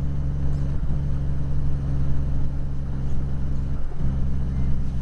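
Truck engine running steadily, heard from inside the cab, with short breaks in its note just under a second in and about four seconds in.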